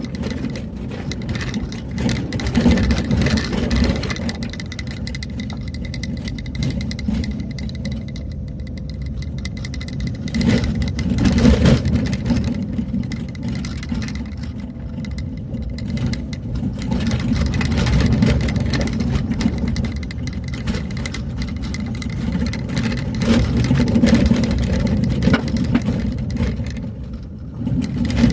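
A vehicle driving along a road: a steady engine and road rumble with mild swells in loudness.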